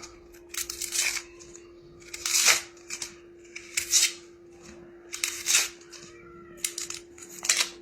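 Knife cutting into the top of an onion: a series of short, irregularly spaced cutting strokes, about one a second.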